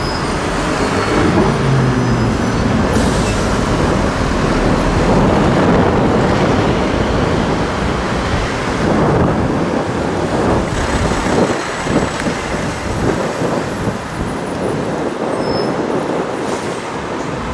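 Lamborghini Huracán's V10 engine driving off through city traffic, over steady road traffic noise.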